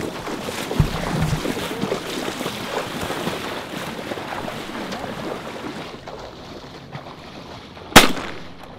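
Hunters wading through shallow marsh water: boots splashing and sloshing with irregular steps, over wind on the microphone. Near the end comes a single very loud, sharp bang that dies away quickly.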